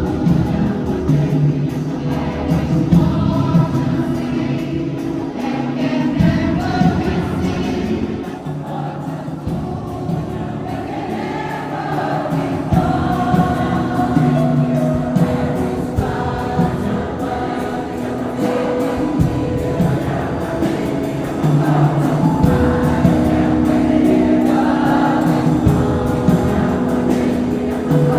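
A choir singing live in concert, holding long sustained chords.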